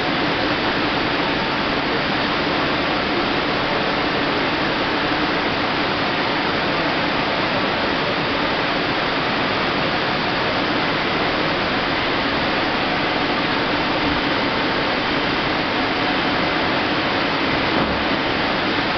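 Steady rushing noise of an Astepo aseptic filler running while an IBC bag liner fills, with a faint steady hum underneath.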